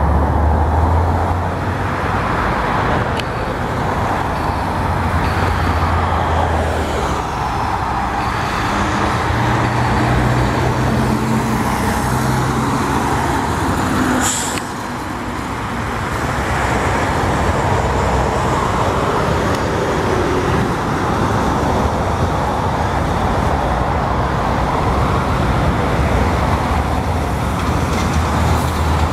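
Heavy road traffic driving past close by: trucks and vans with their diesel engine hum and tyre noise rising and fading as each passes.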